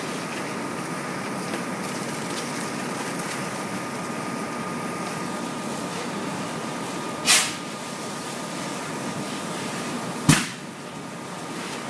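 Steady mechanical drone with a thin steady whine, typical of a fire engine pumping charged hose lines at a burning van, broken by two sharp bangs about three seconds apart, the second with a deeper thump.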